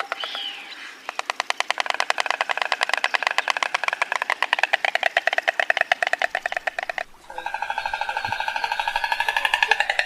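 Stork clattering its bill: a rapid, even rattle of sharp clicks lasting several seconds, breaking off briefly about seven seconds in, then starting again.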